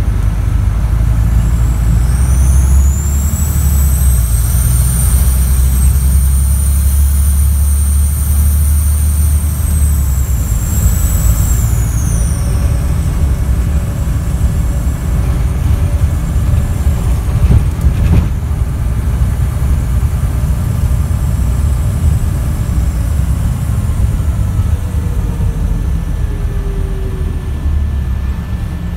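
Scania DC9 9-litre inline-six diesel of a Scania N94UD double-decker bus pulling hard, heard from inside the bus. A leaking turbocharger adds a loud, high whistle that rises about two seconds in, holds, then falls away around twelve seconds as the engine eases off. A single knock comes around eighteen seconds in.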